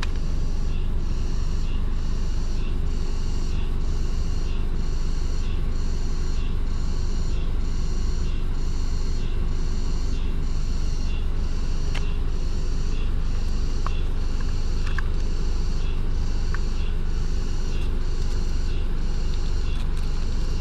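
Wind buffeting the microphone, a steady low rumble, over a rhythmic high chirping that repeats a little faster than once a second. A few small clicks come in the second half as the car's battery leads are handled.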